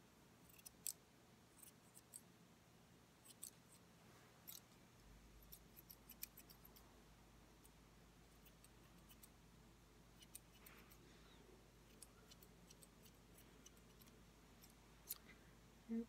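Straight grooming shears snipping through a poodle's leg fur: faint, sharp snips in small irregular clusters with pauses between.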